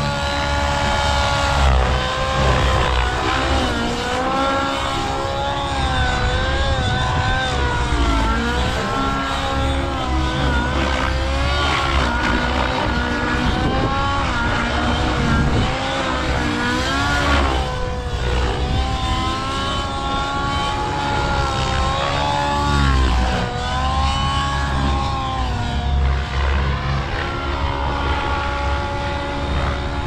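Radio-controlled model helicopter in flight, its rotor and motor whine rising and falling in pitch again and again as it is thrown around, over a steady low rumble.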